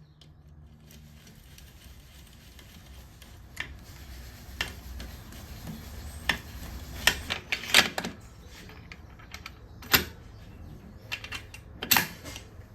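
Scattered sharp metallic clicks and clinks of tools and small metal parts being handled and set down, over a low steady hum, with the loudest knocks about seven, ten and twelve seconds in.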